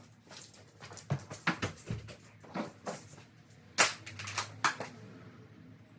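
Tools and gear being handled and moved: a string of sharp knocks and clatters of hard objects, the loudest about four seconds in.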